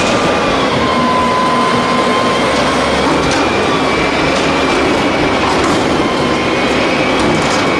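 Mack front-loader garbage truck working its lift: the diesel engine runs hard and the hydraulic pump gives a steady whine as the forks raise a dumpster up over the cab to tip it into the hopper.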